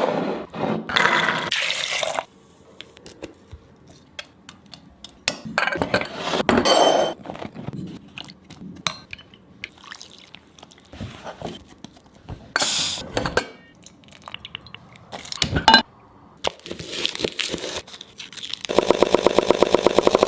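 Kitchen work sounds: scattered clinks, knocks and scrapes of utensils and dishes, with short louder rustling patches between quiet stretches. Near the end a loud, fast, even buzzing starts and keeps on.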